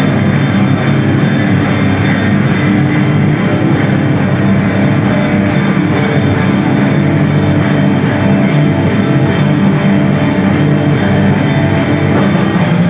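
An atmospheric crust/post-metal band playing live and loud: distorted electric guitars over a drum kit with cymbals, a steady wall of sound with no let-up.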